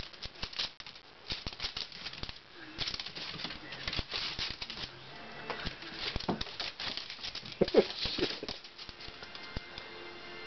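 Small terriers' claws clicking and scrabbling on a bare wooden floor as they dash after a laser dot: a rapid, irregular patter of clicks.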